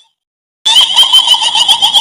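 Kuntilanak ghost sound effect: a shrill, high, wavering cackle that starts suddenly about half a second in, after a brief silence.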